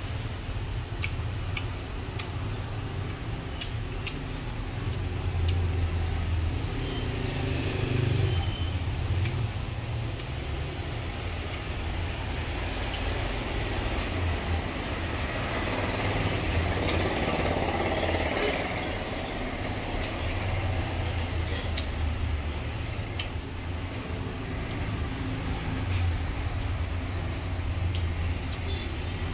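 Steady low background rumble with a few faint clicks scattered through it.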